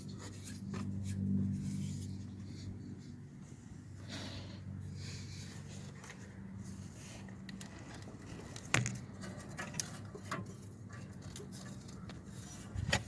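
Faint clicks and light scraping of someone handling parts, over a steady low hum; a sharper click comes nearly nine seconds in.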